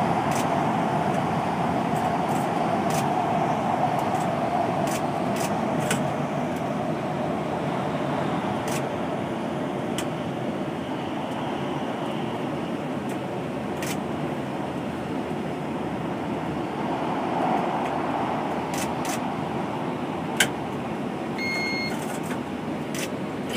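Gautrain Bombardier Electrostar electric train running through a tunnel, heard from inside the driver's cab: a steady rumble and hiss of the moving train. Scattered faint clicks, one sharp click about twenty seconds in, and a short beep shortly after.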